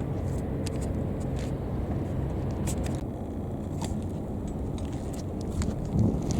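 Steady low engine rumble, with scattered light clicks and a short low thump near the end.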